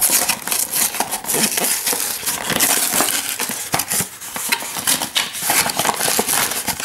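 Hands unpacking a box: steady rustling with many quick, irregular clicks and clatters of cardboard and plastic packaging being handled.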